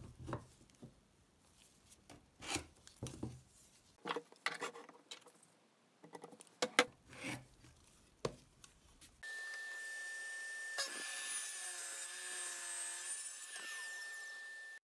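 Metal combination square, sliding bevel and pencil tapping, clicking and scratching on a pine board while it is marked out. About nine seconds in, a steady machine hum with a high whine starts suddenly and runs on.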